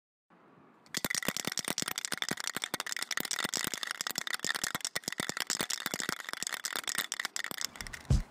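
Aerosol spray-paint can being shaken, its mixing ball rattling in fast, uneven clicks from about a second in, for about seven seconds. A low thump comes near the end.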